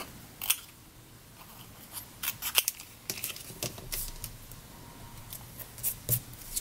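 Scissors snipping as a piece is trimmed to size: a string of short, crisp snips at uneven intervals, bunched around two to three seconds in.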